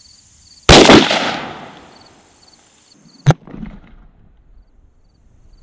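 Rifle shot from a 16-inch Daniel Defense DDM4v11 carbine firing a .223 Remington round: a sharp crack about two-thirds of a second in, with an echo that fades over about a second. A second, shorter crack with little echo follows about three seconds in.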